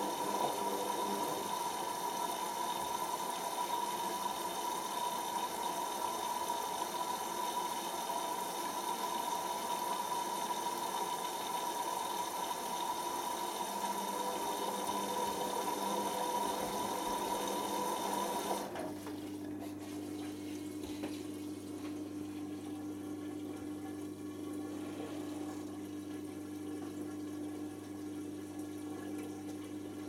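Hoover Optima OPH714D washing machine in its drain and dilution rinse. The drain pump runs with a steady whine, then cuts off suddenly about two-thirds of the way through. After that a steady low hum and water running in follow as the machine refills for the rinse.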